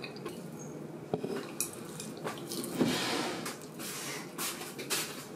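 Soft clinks and taps of chopsticks and tableware during a meal, with a slurping sip from a small cup about three seconds in.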